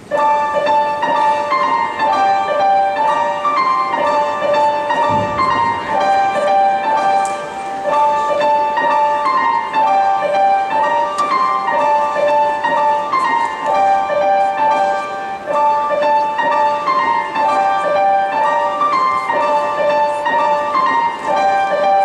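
Piano music starts abruptly and plays on steadily, a repeating melody of clear, quick notes.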